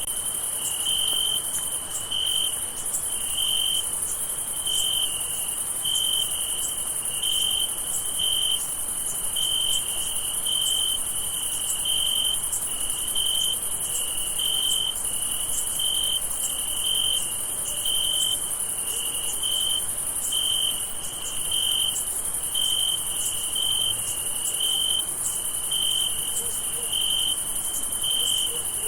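Crickets chirping at night: short, even chirps repeating about every 0.7 s, over a continuous high-pitched insect trill.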